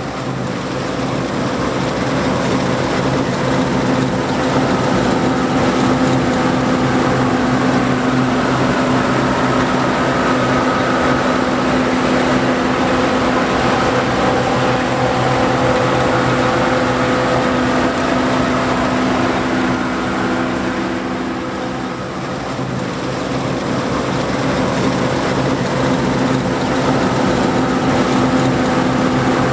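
John Deere 4425 combine harvester running steadily while harvesting wheat: a steady engine drone with a higher machinery whine above it. The sound dips a little about three-quarters of the way through, then comes back up.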